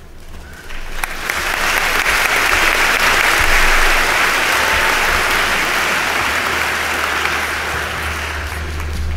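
Large audience applauding, swelling about a second in and slowly dying away.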